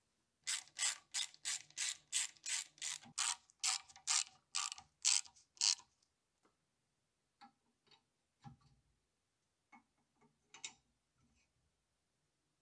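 Ratchet wrench clicking in an even run of quick strokes, about three a second, tightening a socket-head cap screw into a steel lathe carriage block. The clicking stops about six seconds in. A few light metal taps and one duller knock follow as steel parts are set in place.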